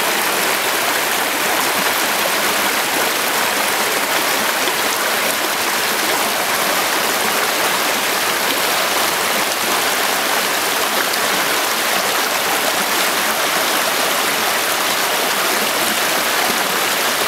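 Thomas Creek's water flowing with a steady, even rush, picked up by a camera's built-in microphone.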